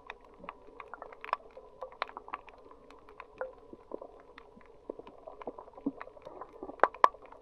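Underwater sound on a shallow coral reef: irregular sharp clicks and crackles over a faint steady hum, with a couple of louder snaps near the end.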